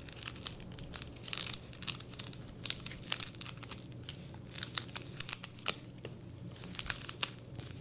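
Old handlebar tape being peeled and unwound from a drop handlebar: irregular crinkling and tearing with many small clicks, over a faint steady hum.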